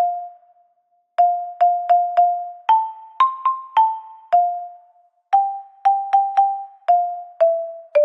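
A slow, simple children's melody played one note at a time on an electronic keyboard, each note struck sharply and fading away; several repeated notes, then the tune steps up and back down.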